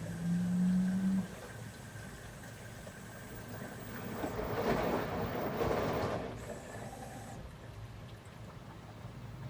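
Washing machine running: a steady motor hum stops about a second in, leaving a low rumble, and a louder swell of rushing noise rises and falls in the middle.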